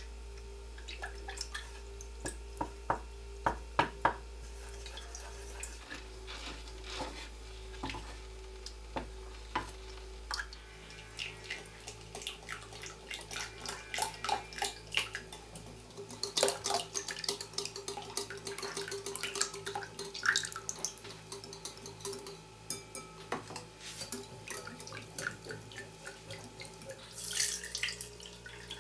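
Kitchen work sounds: utensils and dishes clinking and tapping against bowls and pots in scattered small knocks, busier from about halfway, with some water running or dripping.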